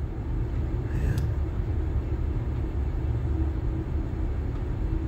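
Steady low machine rumble, under a knife slicing red bell pepper on a plastic cutting board.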